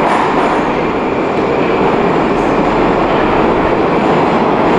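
Moscow Metro train running, a loud, steady rail rumble.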